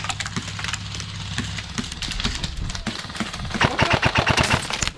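Airsoft gunfire: scattered shots, then a rapid string of shots at about ten a second near the end.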